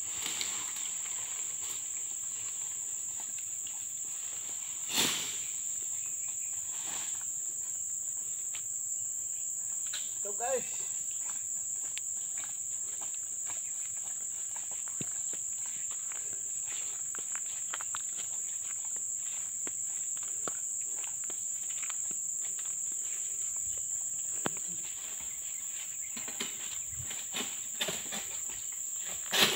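Steady high-pitched drone of insects, with one sharp knock about five seconds in and a few lighter knocks near the end.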